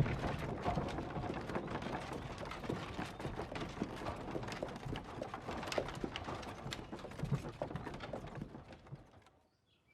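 Horse hooves clip-clopping in a dense, irregular run of knocks, slowly fading away and dying out near the end.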